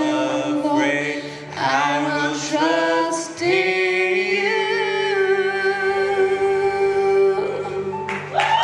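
A girl and a man singing a duet into microphones, a gospel song, ending on one long held note of about four seconds.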